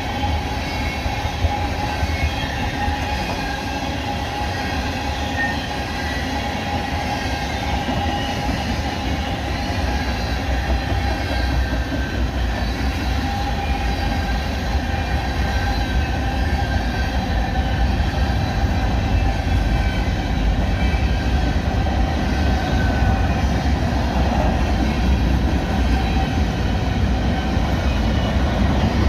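Freight train cars rolling past in a steady low rumble, with a few faint, steady high tones from the wheels over it. The sound grows a little louder in the second half.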